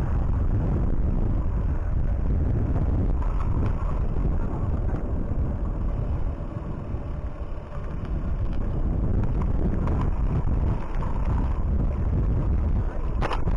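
Wind buffeting the microphone: a steady, heavy low rumble, easing a little about halfway through, with a short sharp click near the end.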